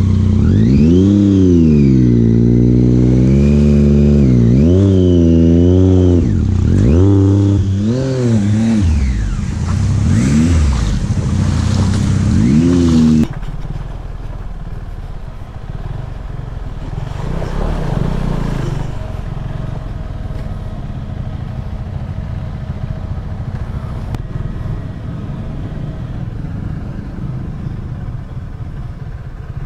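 Motorcycle engine being ridden, its pitch rising and falling again and again under throttle. About 13 seconds in the sound drops suddenly to a quieter, steady low rumble.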